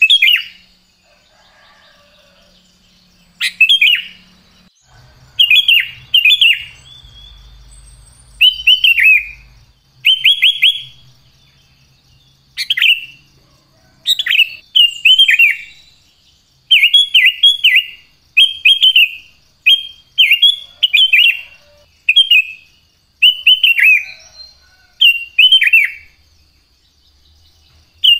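Sooty-headed bulbul (kutilang) singing: short, loud phrases of a few quick notes, repeated every second or two and coming more often in the second half.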